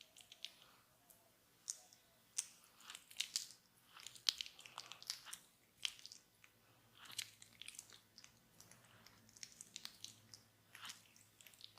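Fingers scratching and rubbing through hair on the scalp, making irregular runs of short, sharp crackles and crunches.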